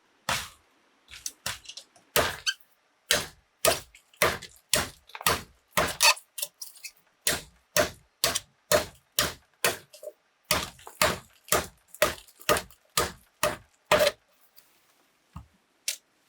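Repeated blows of a hand tool on bamboo, steady at about two a second, stopping a couple of seconds before the end, with two lighter knocks after.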